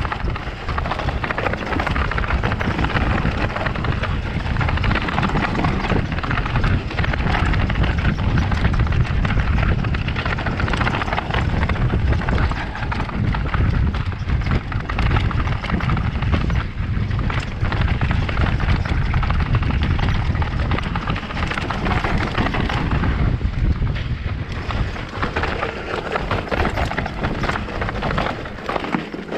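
Mountain bike rattling and knocking steadily as its tyres roll fast over a rough stone-paved trail, with wind rumbling on the camera's microphone.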